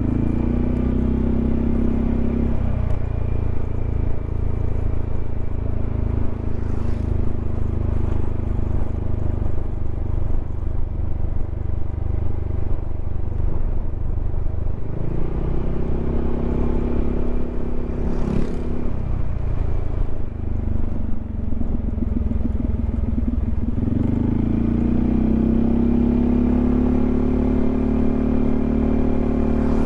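Yamaha XMAX 300 scooter's single-cylinder engine running while riding, its note rising as it speeds up about halfway through and again near the end.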